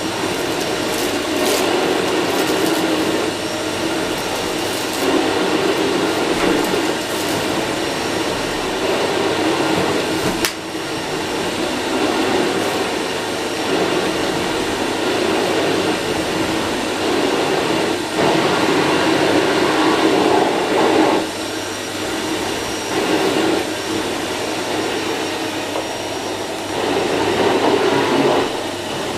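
Electrolux UltraFlex Green canister vacuum cleaner running at its lowest suction setting, with its combination floor nozzle working over a carpet; the steady motor and air rush swells and eases in level. A brief sharp click about ten seconds in.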